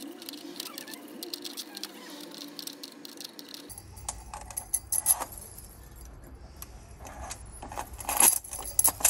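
Brass Sargent RA key blanks clinking and jangling against each other and the metal pegboard hook as a stack is slid onto it by hand, with louder clinks about five seconds in and again near the end.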